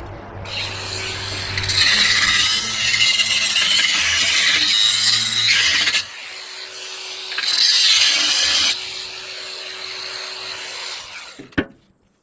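A cut-off wheel (zip disc) grinding through a steel exhaust pipe, in two loud cutting spells with the tool running more lightly between and after them. A single sharp knock near the end, and then the tool stops.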